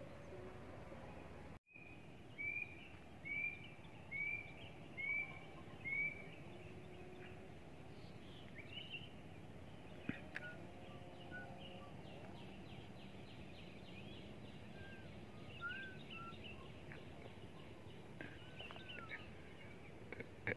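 Outdoor ambience with a bird calling: a run of five short, arched notes about a second apart, then scattered chirps and calls from other birds over a steady background hiss.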